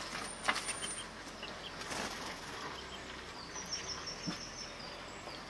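Yorkshire canaries fluttering their wings and scuffling, with a few sharp knocks and a brief run of high chirps a little past halfway.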